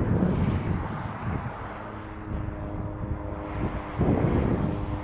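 Wind buffeting the microphone, loudest in the first second or so and easing, then the steady hum of a turboprop airliner's engines and propellers with several held tones; more gusts of wind near the end.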